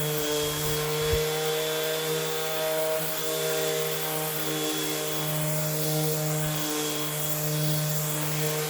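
Electric 5.5-inch disc sander running steadily while sanding a wooden board, a rough first sanding pass. A brief knock about a second in.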